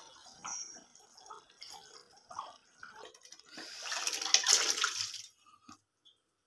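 Cooked chicken pieces and their broth tipped from a pot into curry gravy: a wet sloshing pour lasting about a second and a half, a little past the middle. Before it come a few light clicks and taps.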